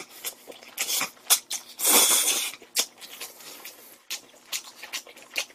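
A person slurping noodles from a bowl close to the microphone, a short slurp about a second in and a longer one about two seconds in, then chewing with quick wet smacking clicks.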